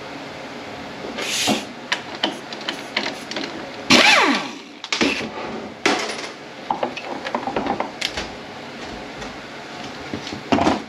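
Metal clanks, clicks and scrapes of hand tools on the parts of a 10R80 automatic transmission being taken apart, with a loud scrape that drops in pitch about four seconds in.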